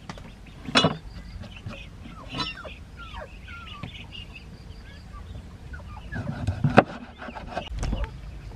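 A cleaver chopping fish into chunks on a round wooden chopping board: a few sharp chops, the loudest near the end. Short bird chirps are heard in the background.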